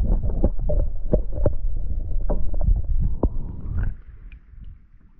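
Muffled rush of water heard through a submerged camera beside a kayak hull, with irregular clicks and knocks. About four seconds in the camera comes up out of the water and the sound drops off sharply to faint water lapping.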